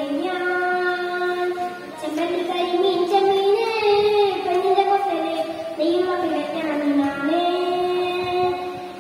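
A young boy singing into a microphone without accompaniment, holding long notes with slides between them, with a short breath pause about two seconds in and another near the end.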